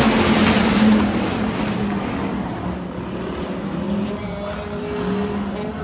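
A pack of dirt-track stock cars racing, engines revving and wavering in pitch. The noise is loudest in the first second as the cars pass close by, then eases off as they move away.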